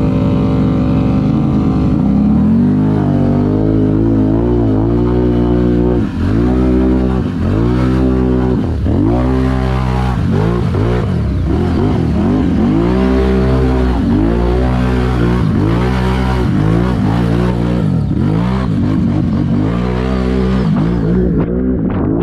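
ATV engine revving through deep flood water, its pitch rising and falling about once a second as the throttle works, with water hissing and splashing around the machine.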